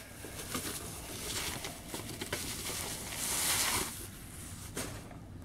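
Cardboard toy box and its packaging being handled and opened: rustling and scraping with a few light clicks, swelling into a louder rustle about three and a half seconds in.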